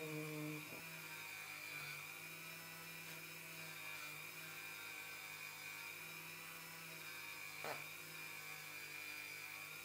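Flex-shaft rotary tool running steadily with a faint high whine over a low hum, its felt polishing bob buffing the tip of a steel nail setter. It is briefly louder at the start, as the spinning pad is pressed into a bar of green polishing compound.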